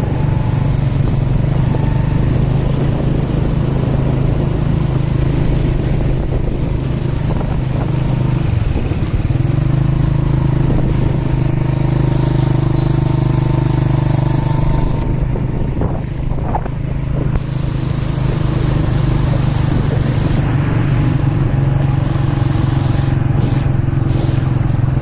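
Motorcycle engine running steadily while riding, a constant low hum that eases briefly about eight seconds in.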